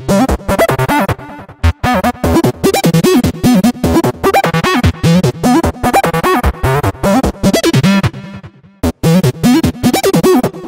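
Electronic background music with a choppy, stop-start beat, breaking off briefly about three-quarters of the way through before carrying on.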